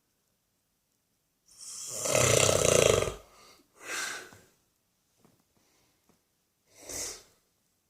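An elderly man snoring in his sleep: one long, loud snore about a second and a half in, a shorter breath out about a second later, and another short breath near the end.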